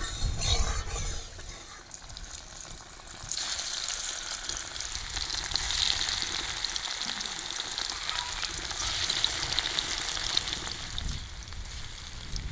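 Spice-coated paneer cubes sizzling as they fry in hot mustard oil in a kadai. The sizzle starts suddenly a few seconds in as the paneer goes into the oil and carries on steadily. A few low thumps come before it.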